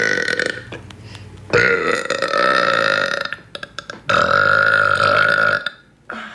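A woman burping three times: a short burp at the start, then two long, drawn-out burps of nearly two seconds each, held at a fairly steady pitch.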